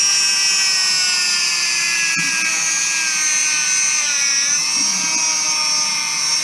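Dremel rotary tool with a grinding stone running at a high whine while grinding burrs off the scuffed lip of an aluminium alloy wheel rim. The pitch drifts down a little and wavers as the stone bears on the metal, with a small tick about two seconds in.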